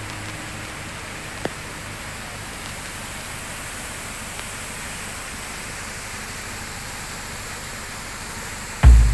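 Steady, even rushing hiss like falling water. Just before the end, the deep thumping bass beat of electronic music comes in.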